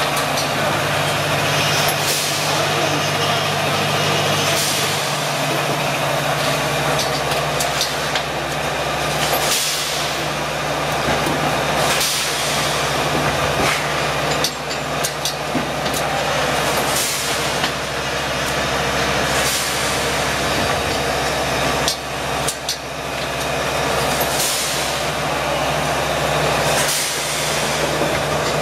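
Automatic doypack stand-up pouch filling and capping machine running with a steady mechanical hum. Short hisses of compressed air come about every two to three seconds as its pneumatic cylinders cycle.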